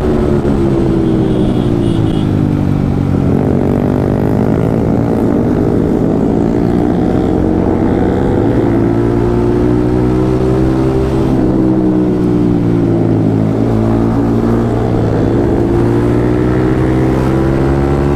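Yamaha MT-15's single-cylinder engine running under way, its pitch rising and falling with the throttle, dropping about three seconds in and again around thirteen seconds in before climbing back.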